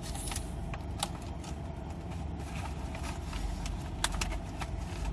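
A steady low rumble with a few light clicks and taps.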